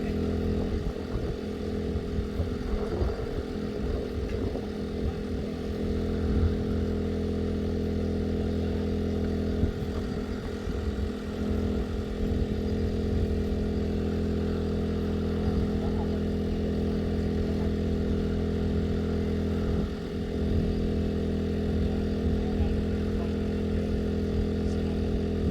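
Engine-driven generator running steadily at a constant speed, an even mechanical hum, as used to power the lamps for night light-trap insect collecting.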